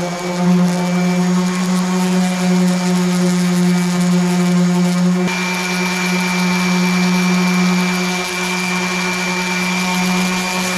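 Electric random orbital sander running steadily with a motor hum, its fine-grit disc sanding the plastic hull of a kayak. About five seconds in, the sound shifts abruptly and a thin high whine comes up stronger.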